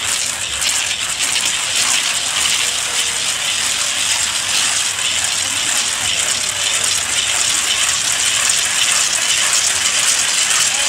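Dense, steady clatter of many hand-swung wooden ratchet rattles from a group of marching carnival figures.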